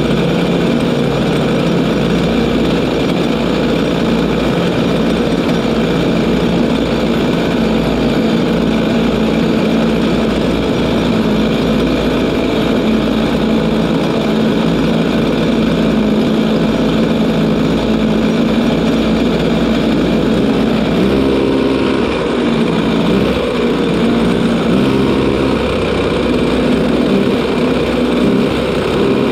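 Racing kart engine, newly fitted and being run in, running at a steady idle, mixed with the idling engine of the kart ahead. The note shifts a little about three-quarters of the way through.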